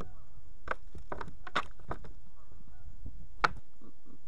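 A few sharp knocks and clicks from a fish and fishing tackle being handled against a plastic fishing kayak. The loudest is a single sharp click about three and a half seconds in, over a low rumble that stops just after it.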